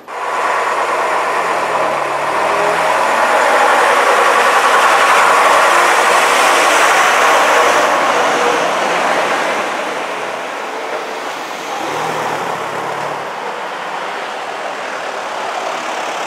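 A vintage Eastern Counties bus's diesel engine running as the bus passes close by. It is loudest a few seconds in, then eases off, and a second engine hum comes up briefly about twelve seconds in.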